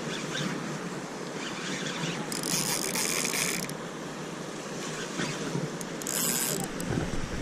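Fishing reel being cranked steadily to retrieve a lure, its gears whirring, with two short bursts of hiss, one midway and one near the end.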